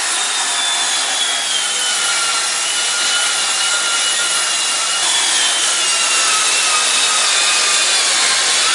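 Makita DHS680 18 V cordless circular saw with a 165 mm blade cutting through a thick OSB board, a loud steady hiss of blade through wood chips over a motor whine that slowly sinks in pitch under load. About five seconds in the whine jumps back up and sinks again.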